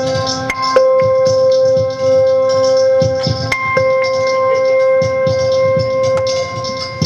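Pedal steel guitar holding a sustained chord, picked again a couple of times, over a soft steady beat; just either side the notes slide in pitch.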